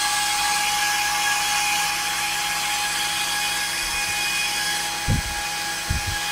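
Cooling fans on the RF power amplifier's heatsink running, a noisy steady whir with a few steady whining tones in it. Two dull bumps sound near the end.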